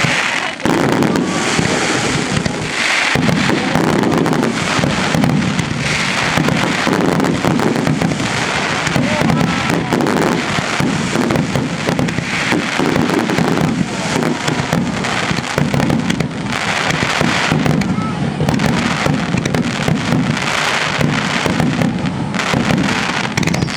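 Finale barrage of aerial fireworks shells bursting close by, a rapid, continuous run of overlapping booms and crackling with no pause.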